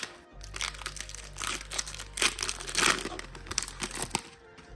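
Foil Pokémon booster pack wrapper crinkling as it is torn open, in a run of irregular crackles.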